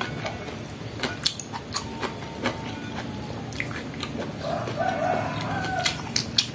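Eating by hand: crisp clicks and crunches of fried food and crackers being chewed and picked from a plate. A chicken calls in the background between about four and six seconds in.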